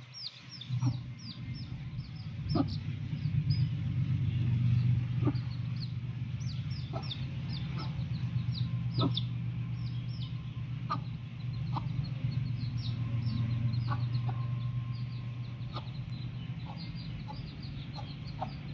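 Chicks peeping without pause in short, high, falling chirps, several a second, while a hen gives short, low clucks every second or two. A steady low hum runs underneath.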